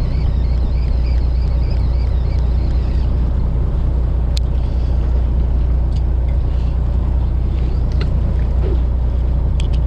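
Fishing boat at sea with a steady low engine rumble, with a few faint clicks.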